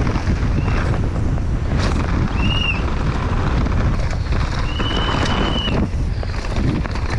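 Downhill mountain bike ridden fast down a dirt track, heard from a GoPro on the rider: wind buffeting the microphone over the rumble and rattle of the tyres and bike. The disc brakes squeal twice at a high pitch, briefly about two and a half seconds in, then for about a second near five seconds.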